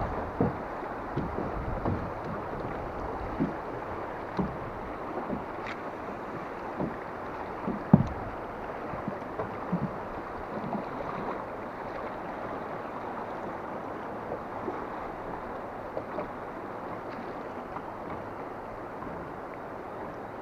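Choppy river water slapping against a drifting aluminium boat's hull, with irregular dull knocks every second or so, the loudest about eight seconds in, over a steady rush of wind and waves.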